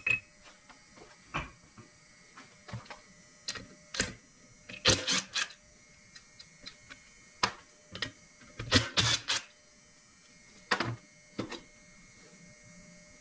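Scattered clicks and clinks of metal parts and tools on an opened Predator 212 engine crankcase, with two short rattling bursts, about five and nine seconds in, from a cordless impact driver backing out the low-oil sensor's two bolts.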